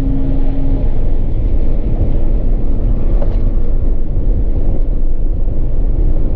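Car engine and tyre noise heard from inside the cabin while driving hard around a track, a loud, steady rumble.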